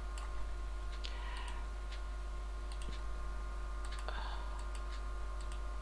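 Irregular, scattered clicks of a computer keyboard and mouse as text is typed into a table cell, over a steady low hum.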